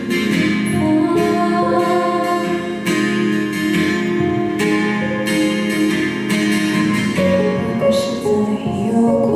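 Live song performance on acoustic guitar: the guitar keeps playing the accompaniment through a gap between sung lines.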